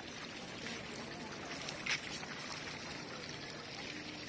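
Steady rush of running water, with one brief sharp knock about two seconds in.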